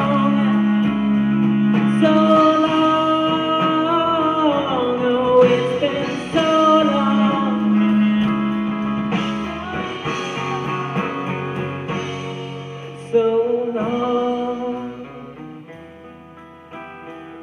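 Live band music heard from the crowd: singing over guitars and drums, getting quieter over the last few seconds.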